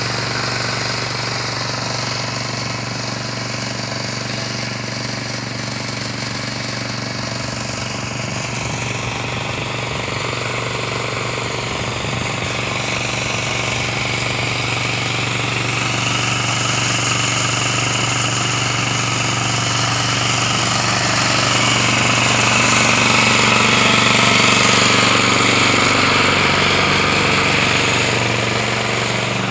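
Steady machine hum with a constant low drone, getting somewhat louder past the middle.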